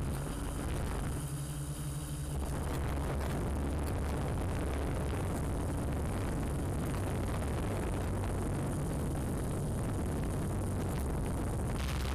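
Steady whir of a camera drone's propellers with wind noise, its tone shifting about two and a half seconds in and again near the end.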